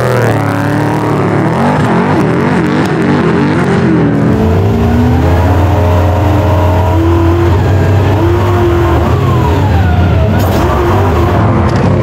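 Off-road race vehicle engines at hard throttle, pitch repeatedly rising and falling through revs and gear changes, over a steady low drone that strengthens about four seconds in.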